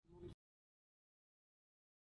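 Near silence: the sound track is dead, apart from a brief faint sound in the first third of a second that cuts off suddenly.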